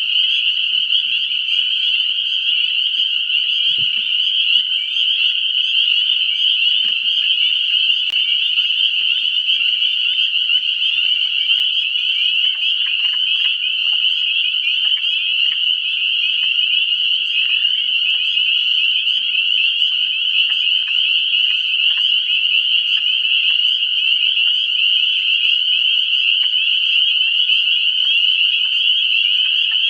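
Dense spring frog chorus from a pond: many frogs calling at once in an unbroken, high-pitched wall of short overlapping calls, steady throughout, with a few faint clicks.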